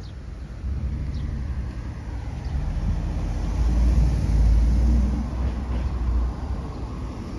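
A car driving past on the street: its engine and tyre rumble rises to a peak about four seconds in, then fades away.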